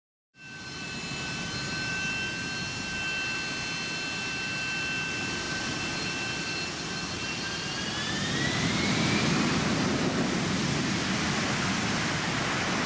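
Jet airliner engines heard from inside the cabin: a steady rush with a high whine that climbs in pitch about eight seconds in as the noise grows louder, the engines spooling up.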